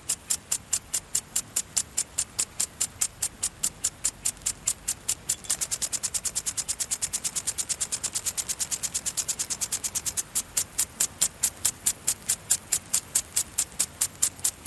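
Automatic garden sprinkler spraying water in regular hissing pulses, about three to four a second. From about five seconds in the pulses come quicker and softer for a few seconds, then return to the slower pace near the ten-second mark.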